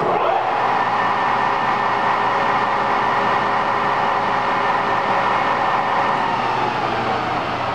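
SERVO 16 x 40 engine lathe's spindle starting with a click and running loudly at a higher speed, a steady mechanical whine over gear and motor noise.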